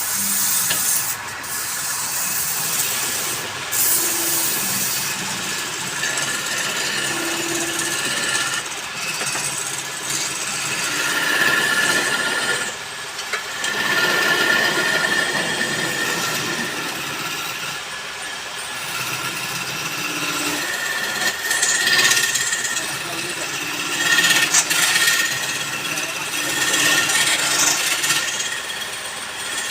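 A wood lathe running while a tool cuts and rubs against the spinning wood, giving a steady scraping noise with a shifting whine.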